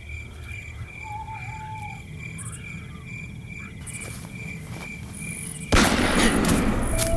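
Night insects, crickets among them, chirping steadily in a regular pulse of about four chirps a second. Near the end a sudden loud rushing noise cuts in and carries on.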